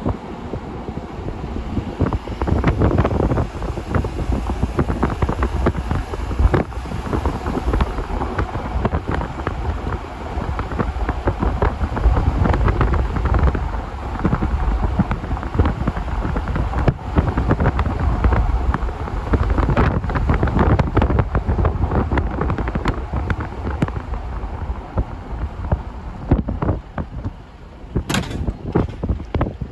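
Wind buffeting the microphone: a loud, gusty rumble that rises and falls in level, with one brief sharp click near the end.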